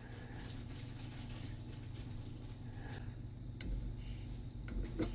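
Steady low hum with a few light clicks and taps, one about three and a half seconds in and a couple near the end.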